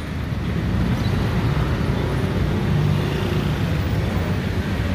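Petrol station fuel dispenser running as it fills a motorcycle's tank: a steady low hum, with road traffic noise around it.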